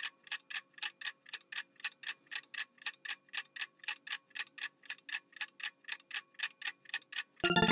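Clock-ticking sound effect used as a quiz countdown: a steady tick-tock of about four ticks a second. Near the end it gives way to a bright chiming jingle.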